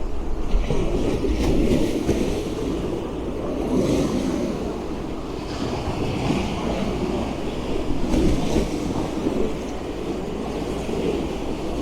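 Sea waves washing in against the sea-wall steps and running along their edge, swelling in a hiss several times, with wind rumbling on the microphone.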